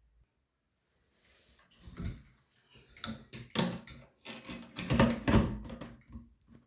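A run of irregular knocks, clicks and rattles, starting about a second and a half in and loudest about five seconds in.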